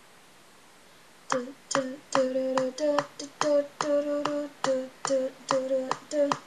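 A young woman singing a tune in short, clipped syllables, about two notes a second, starting a little over a second in.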